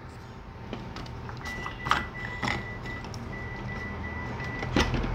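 Plastic fan blade being handled and pulled off its shaft: a few light clicks and knocks over a steady low hum, with a faint, high, steady whine coming in about a second and a half in.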